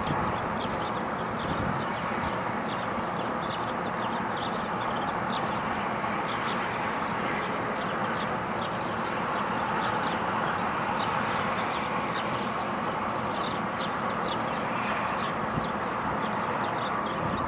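Steady rushing outdoor background noise with many short, high chirps scattered through it.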